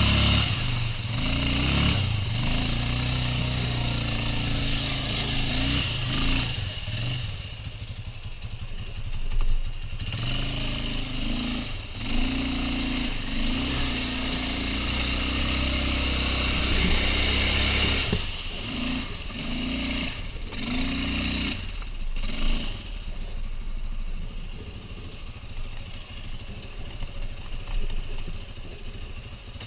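Quad bike (ATV) engine running and revving in repeated surges, its pitch rising and falling, with several short drops in between.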